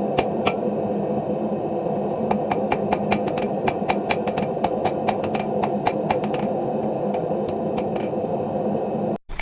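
A blacksmith's forge running with a steady roar and hum. Over it comes a quick, even run of light hammer taps on iron at the anvil, which thins out after about six and a half seconds. The sound cuts off abruptly near the end.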